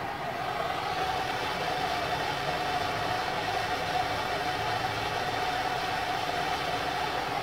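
Hand-held gas torch burning with a steady hiss as its flame heats heat-shrink tubing over a guy-wire splice.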